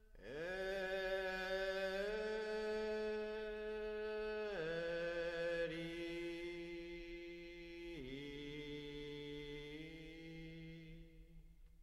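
A solo voice chanting unaccompanied in long held notes. It slides up into the first note, steps down in pitch about four and a half and eight seconds in, and fades out near the end.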